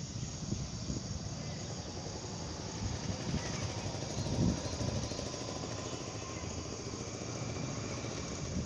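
Outdoor rural ambience: a steady low rumble, with faint insect chirring above it and a brief louder swell about four and a half seconds in.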